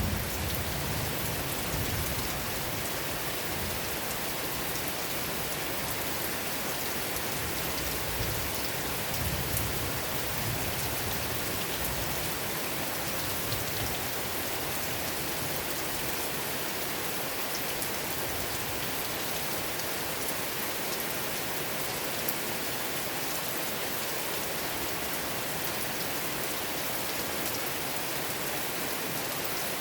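Steady rain falling, an even hiss of drops. A low thunder rumble dies away in the first second, and fainter low rumbles follow around eight to ten seconds in.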